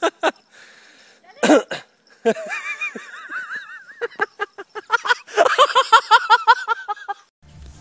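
A person's high-pitched shrieks and laughter: wavering cries, then rapid bursts that come thick and fast in the second half and stop suddenly near the end.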